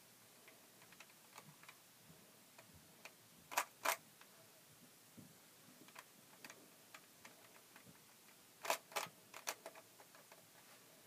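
Rubik's Cube layers being turned by hand: faint, irregular plastic clicks, with louder clacks of quick turns twice, about three and a half seconds in and again around nine seconds in.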